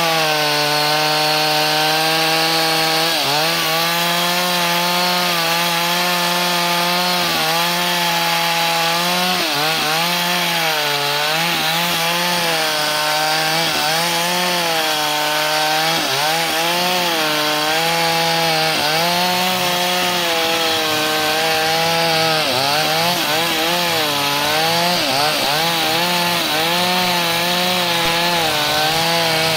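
Two-stroke chainsaw at full throttle ripping lengthwise along a log of very hard wood. The engine pitch sags under load every few seconds and then picks back up.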